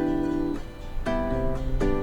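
Background music: acoustic guitar strumming chords, a new chord about every 0.7 seconds.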